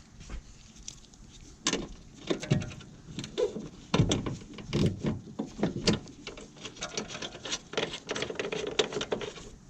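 Irregular clicks, knocks and scrapes of hands and tools working at plastic trim and fasteners, as a vehicle's third brake light assembly is worked loose, loudest in the middle.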